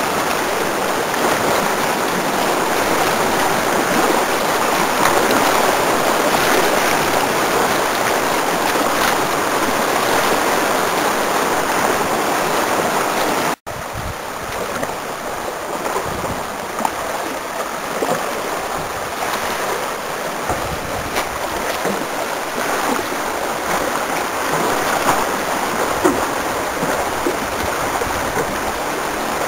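Whitewater rapid rushing steadily, a continuous hiss of churning creek water around a surfing kayak. The sound drops out for an instant about halfway through, then the rushing carries on.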